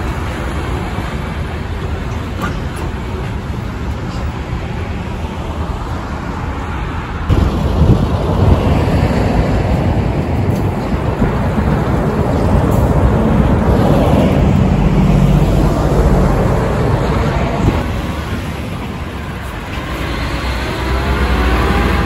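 Heavy diesel semi-trailer trucks driving past, a low engine rumble with road and tyre noise. It gets louder about seven seconds in as a truck passes close, and eases off for a moment shortly before the end.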